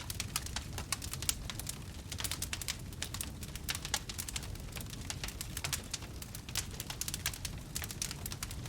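Wood fire burning, with rapid, irregular crackles and pops over a steady low rumble of the flames.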